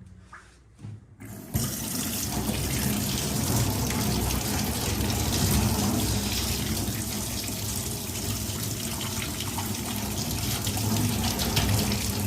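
A hot-water tap turned on about a second and a half in, then running steadily.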